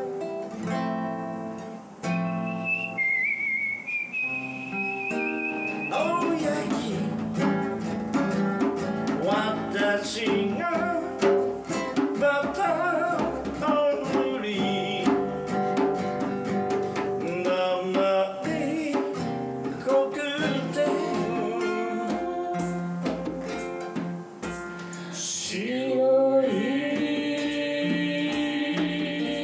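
Acoustic guitar fingerpicked, with a thin high tone over it a few seconds in, then singing into a microphone over the guitar from about six seconds in.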